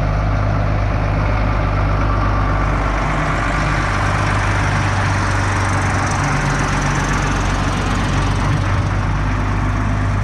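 Large Schlüter tractor's diesel engine running steadily at low revs with an even, deep hum as the tractor drives slowly past.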